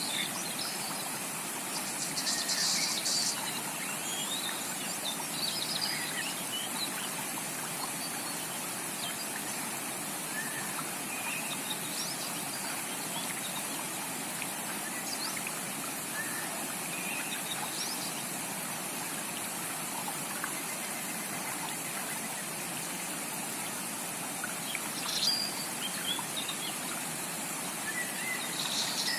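A rainforest creek flows with a steady rush of water. Tropical birds give scattered short chirps and calls over it, with a cluster about two seconds in and the loudest call near the end.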